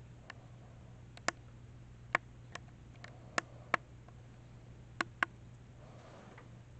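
About nine sharp, short clicks at uneven intervals, some in close pairs, over a steady low hum.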